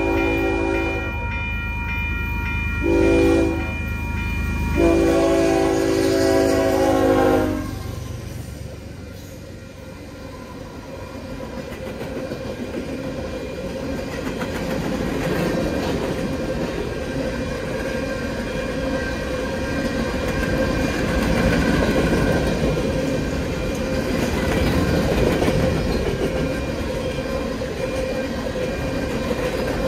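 Freight locomotive's horn sounding for the crossing: a held blast, a short one, then a long final blast that ends about 8 seconds in. Then a string of open-top coal hopper cars rolls over the crossing, the wheels clattering and rumbling steadily and growing louder.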